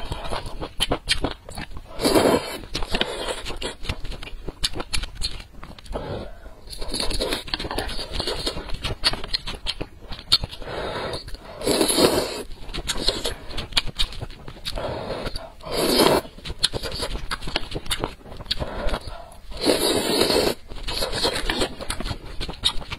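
Close-miked eating of glass noodles in spicy broth: long wet slurps about 2, 12, 16 and 20 seconds in, with smacking, clicky chewing and mouth sounds between.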